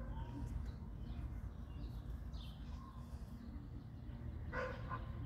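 A dog barks once, short, about four and a half seconds in, over faint bird chirps and a low steady background rumble.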